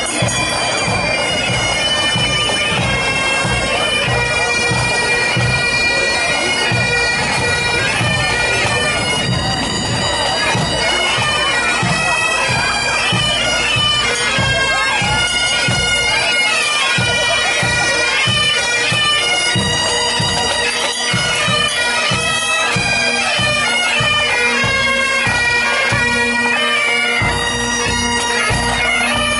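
A marching pipe band: Great Highland bagpipes play a melody over their steady drones, with drums beating a regular marching rhythm underneath.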